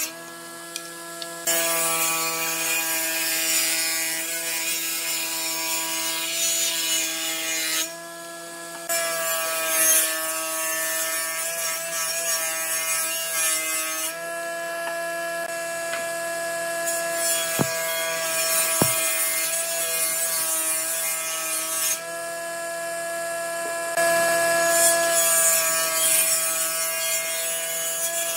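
Circular saw blade of a combination woodworking machine ripping a wood plank: a steady machine whine with the hiss of the blade cutting. The cutting noise drops away briefly near the start and about eight seconds in, leaving the blade spinning free.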